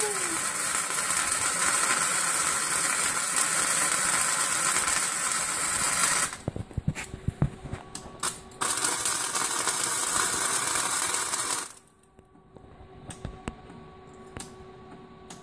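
MIG welding arc crackling and hissing as a weld bead is laid on a Model T's cracked steel frame. The arc stops about six seconds in, a few short clicks follow, then a second run of about three seconds. After that it falls quiet with scattered light clicks.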